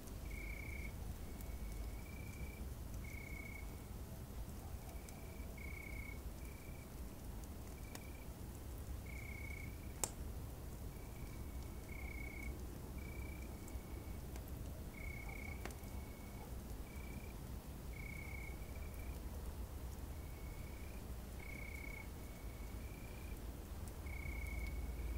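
Night camping ambience: short chirps from a calling night animal repeat about once a second at two slightly different pitches, over a steady low rumble. A few sharp campfire crackles, the loudest about ten seconds in.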